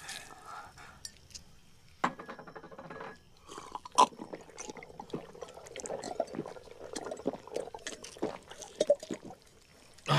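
Sugar water being gulped down noisily from a glass: a dense run of wet gurgles, slurps and small liquid clicks, with a sharp click about four seconds in.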